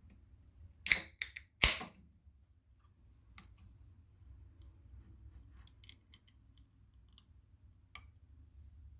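Aluminium drink can being opened: a sharp crack of the pull tab and a short hiss about a second in, then faint scattered clicks of the can being handled.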